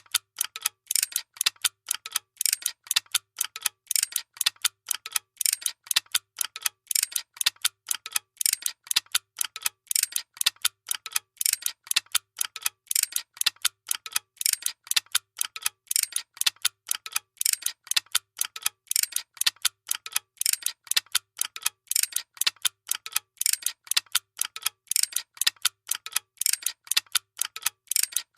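Workshop machinery running with a fast, even mechanical clicking, several sharp clicks a second, over a faint low hum.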